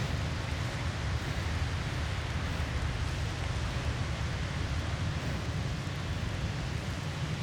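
Steady blizzard wind with a heavy low rumble and an even hiss, unbroken throughout.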